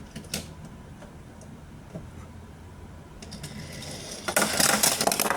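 A sharp plastic click, then a die-cast toy car rattling fast along plastic Hot Wheels track, building up from about three seconds in and loudest near the end.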